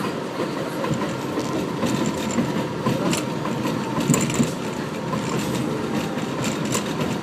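Subway train on New York's 7 line running along the track: a steady rumble of wheels on rail, with the clatter and sharp clicks of wheels passing over rail joints a few seconds in.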